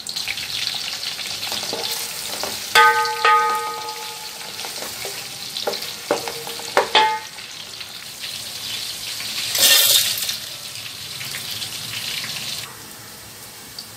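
Sliced onions sizzling in hot oil in a metal pan, stirred with a spatula that scrapes the pan and strikes it with a few ringing metallic clanks, most clearly about three and seven seconds in. The sizzling drops away about a second before the end.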